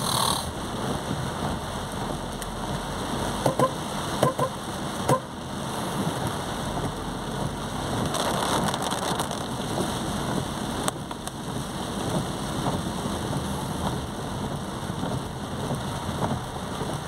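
Heavy rain pouring onto a moving car, heard from inside the cabin as a steady wash of noise, with a few sharp taps about three and a half to five seconds in.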